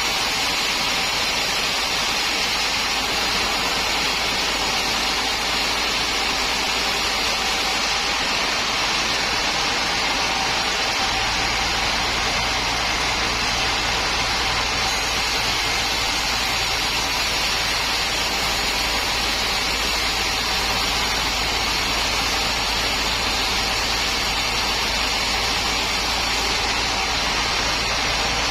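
Sawmill machinery running steadily: a constant hissing noise over a low hum, which grows a little stronger about eleven seconds in.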